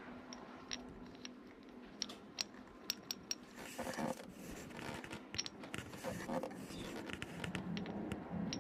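Metal tools and drive parts clicking and scraping as a scooter's belt-drive transmission is taken apart. A run of sharp clicks comes about two to three seconds in, followed by short scraping rubs.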